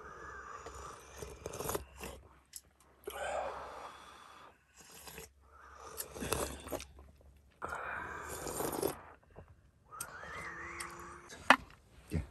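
A person slurping hot broth from a bowl: about five long, noisy sips with short pauses between them. Near the end there is one sharp knock.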